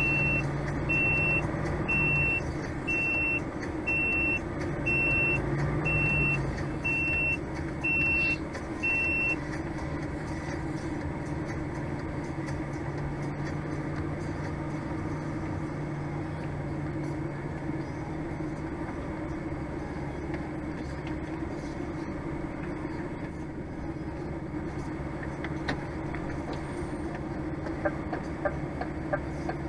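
Vehicle reversing alarm beeping at one steady pitch about once a second, ten beeps over about nine seconds, then stopping, over a steady engine drone. Near the end a run of quick ticks begins.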